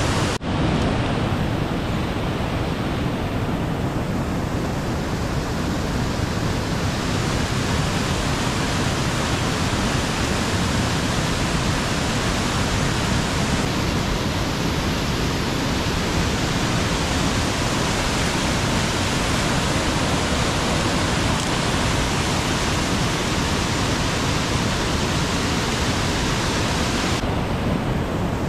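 Rushing water of a small rocky cascade, a loud, steady roar of falling water, with a brief break about half a second in.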